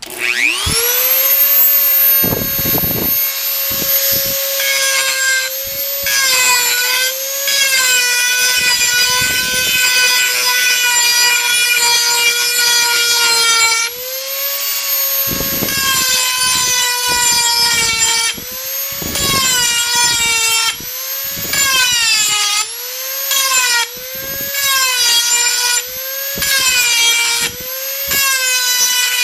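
Dremel 4000 rotary tool switched on, spinning up quickly to a steady high whine and grinding an edge on a steel garden hoe blade. Its pitch sags and recovers each time the bit is pressed into the steel, more and more often through the second half.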